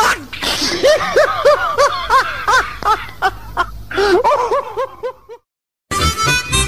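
Laughter in a run of quick ha-ha pulses right after a joke's punchline, stopping suddenly about five seconds in. After a short silence, harmonica-and-accordion music starts near the end.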